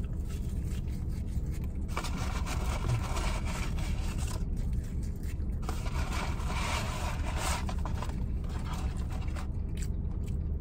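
Close-up eating noises and the rub and scrape of a paper French-fry carton being handled, with patches of rough noise at about two to four seconds and six to seven seconds in, over a steady low rumble inside a car.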